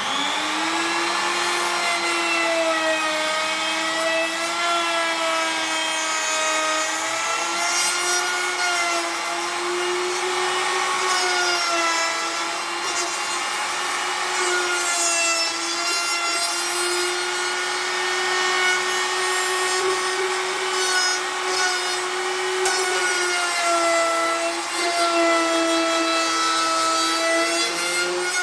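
An electric power tool's motor whining steadily, its pitch dipping and recovering slightly as it is loaded, with a hiss of abrasive grinding on the workpiece.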